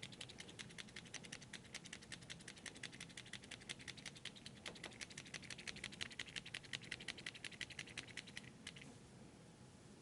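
Push-button clutch of a Caran d'Ache 844 mechanical pencil clicked rapidly and repeatedly, several clicks a second, stopping near the end. It is being pumped to feed freshly loaded 0.7 mm lead, which has not yet come out of the tip.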